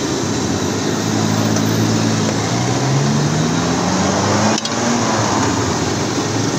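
Steady loud hiss with an engine's low hum underneath, the hum rising a little in pitch about midway, and a brief break about four and a half seconds in.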